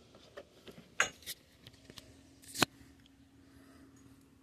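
A few sharp plastic clicks and taps as a cap is put back on a plastic bottle of power steering fluid, the loudest a little past halfway, with quiet between.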